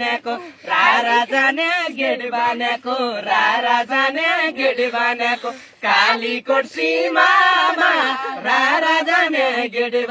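A mixed group of men and women singing a Nepali folk song together, voices only, in a chanting, call-and-response style.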